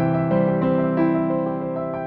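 Background music: soft piano playing a series of chords and notes.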